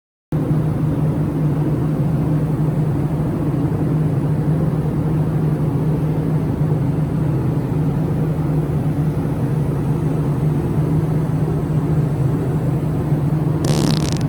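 A loud, steady, low mechanical drone that starts abruptly just after the opening and holds level throughout, with a brief noisy burst near the end.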